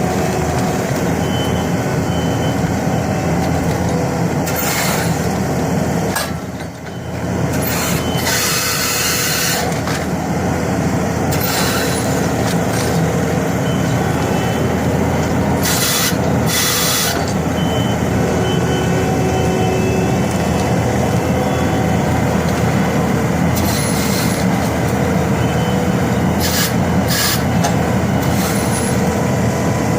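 Bobcat skid steer running a stump grinder attachment: a steady, loud engine drone, broken by repeated hissing, grinding bursts as the cutter wheel chews into the stump, the longest about eight to ten seconds in.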